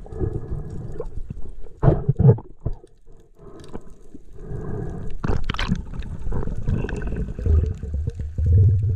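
Muffled underwater water noise picked up by the camera: gurgling and bubbling, with louder surges about two seconds in, around five and a half seconds, and near the end.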